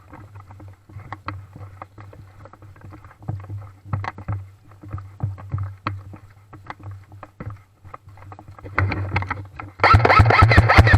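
Scattered light clicks and knocks over a steady low hum. Near the end comes a loud, rapid run of airsoft gunfire, several shots a second.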